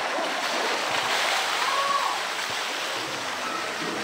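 Water splashing and streaming off a polar bear as it hauls itself out of the pool onto the rocky edge, over a steady rush of water.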